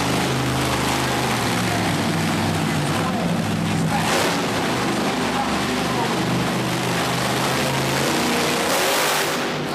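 Monster truck engine running loud under an arena's general din, its pitch holding steady and then shifting, with short bursts of louder noise about four seconds in and again near the end.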